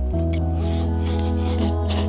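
Background music with held notes, and over it a few short slurps as noodles are sucked in from the bowl.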